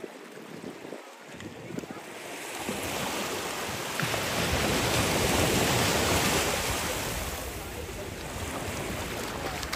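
Sea surf on a beach: a wave rushing in and washing up the sand, swelling over a few seconds and then ebbing away.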